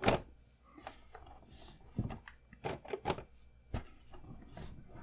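Board game box and its contents being handled on a table: a sharp knock at the start, then scattered lighter knocks and a brief rustle.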